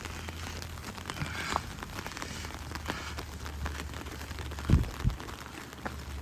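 Rain falling, with many small drop ticks over a steady patter, and two short low thumps close together a little under five seconds in.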